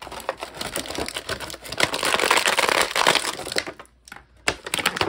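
Clear plastic packaging tray crinkling and crackling as it is handled and an action figure is pulled free of it, loudest about two to three and a half seconds in, then a few sharp clicks near the end.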